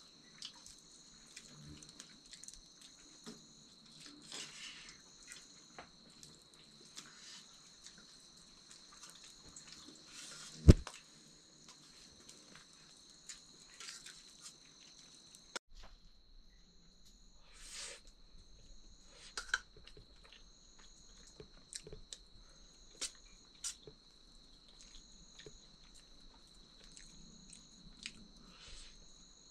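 Quiet eating sounds: chewing and small clicks of food and dishes, with one sharp knock about a third of the way through. Behind them insects keep up a steady high drone, and a second trill pulses on and off every couple of seconds.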